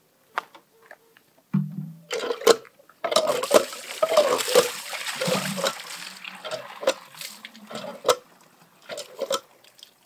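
Water from a lever-operated hand pump splashing into a plastic jug, heaviest in the middle and lighter toward the end. It comes with a few sharp knocks, like the pump handle and jug clanking.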